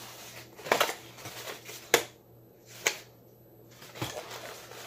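A small cardboard box being handled and opened: a brief rustle of packaging, then two sharp clicks about a second apart and a fainter one near the end.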